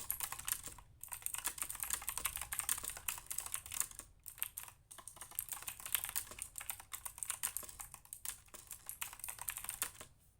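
Fast typing on a MoFii LUSC mechanical keyboard: a dense, irregular stream of key clicks with a few short pauses, stopping near the end.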